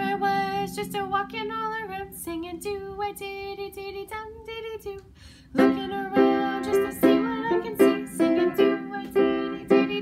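Sing-along song with strummed ukulele accompaniment and singing. It drops quieter about five seconds in, then comes back fuller just after.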